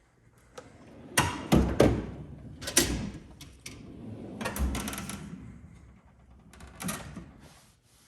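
Snap-on toolbox drawers being worked: several sharp metal knocks and clunks in quick succession, a drawer sliding on its runners for a couple of seconds, then another clunk as one shuts.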